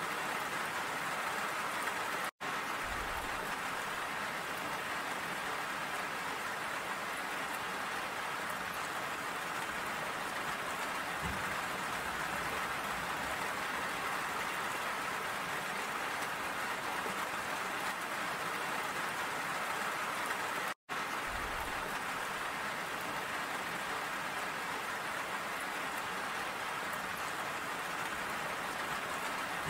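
Steady rain falling, an even hiss of many drops, broken twice by a split-second gap of silence.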